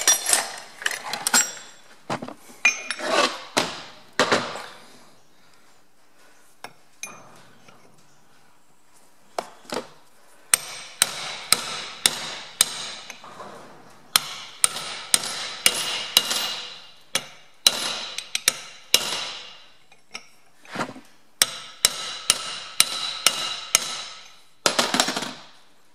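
Hammer blows on a chisel held against the drilled bearing retaining collar of a Ferguson TE20 rear axle half shaft, cracking the collar loose. A few metal clanks at first, a quiet stretch, then from about ten seconds in a steady run of sharp, ringing strikes, about two a second.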